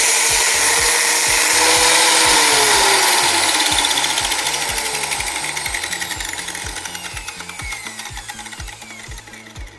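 Angle grinder in a cutting stand running and cutting metal, then switched off about two and a half seconds in: its whine falls in pitch and fades as the disc spins down. Background music with a steady beat underneath.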